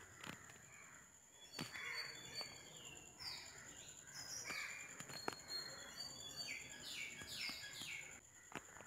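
Faint bird calls: short, falling calls coming in clusters, with a few sharp clicks and a faint steady high whine underneath.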